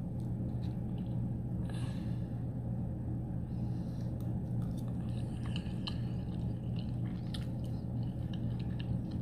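Close-up mouth sounds of someone chewing a forkful of soft macaroni and cheese: scattered faint wet smacks and clicks over a steady low hum.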